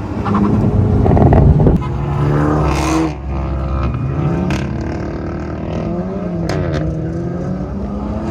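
Car engines at a racetrack revving, their pitch rising and falling as they speed up, slow and pass. A loud rush of engine and wind noise fills the first couple of seconds, then falls away.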